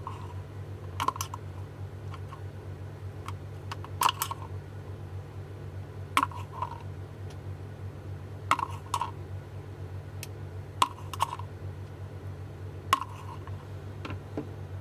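Small sharp clicks and taps of tools and plastic or metal parts being handled, often in quick pairs about every two seconds, over a steady low hum.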